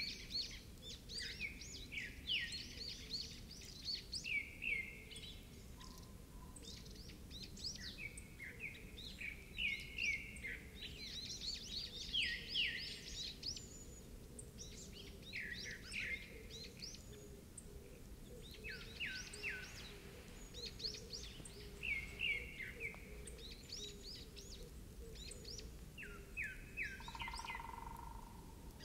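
Small birds chirping and singing throughout, in quick runs of short, falling notes, over a faint steady background of outdoor ambience.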